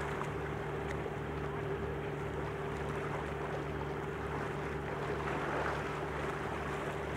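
A ferry's engines and machinery running, heard on board: a steady low drone with a constant higher tone above it.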